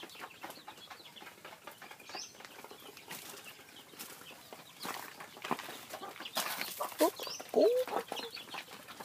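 Chickens clucking softly among small scratching and rustling sounds, with a few short calls in the later half.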